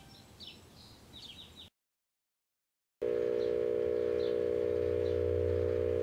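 A microwave oven running: a steady electrical hum starts suddenly about halfway through, after a second of dead silence. Faint high chirps come through before and during the hum.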